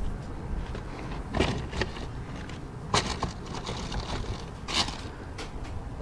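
Handling noise of loose items being moved around in a car's open cargo area: scattered knocks, clatters and rustles, the sharpest about three seconds in and again near five seconds, over a steady low rumble.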